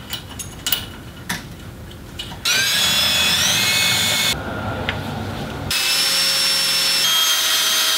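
Cordless drill spinning up with a rising whine and drilling into the cast-iron axle housing through a hole in a metal bracket. It stops after about two seconds, then starts again about a second and a half later. A few sharp clicks of metal parts being handled come before it starts, about two and a half seconds in.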